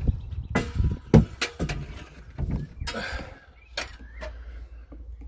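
A series of irregular knocks and scuffs, a few of them sharp, over a steady low rumble.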